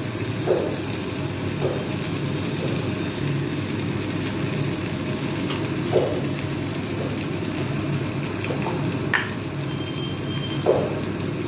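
Radish greens frying in hot mustard oil in a steel kadai, a steady sizzle, with about five short scrapes or knocks of a flat steel spatula against the pan as the greens are stirred.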